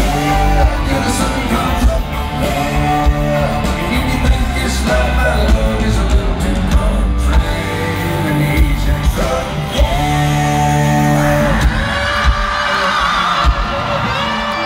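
Live country-rock band playing loudly, with a steady drum and bass beat under held melody notes; a wavering higher instrumental line comes in about twelve seconds in.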